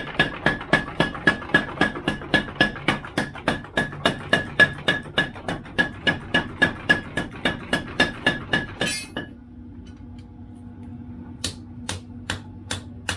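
Blacksmith's hammer forging knife steel: a fast, even run of blows on metal, about four or five a second, each with a ringing metallic note. The hammering stops about nine seconds in, leaving a low steady hum and a few light clicks.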